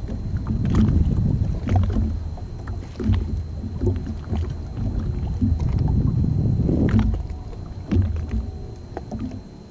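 Waves slapping and sloshing against a jet ski's hull while it drifts, a low rumbling with irregular knocks and splashes, easing off near the end.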